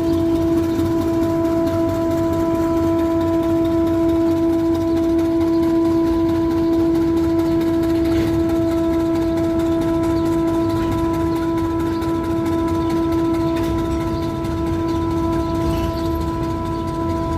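Diesel freight locomotives running, with a steady whine that holds one pitch throughout over a low engine rumble: the strange noise the title lays to the GE U12B locomotive.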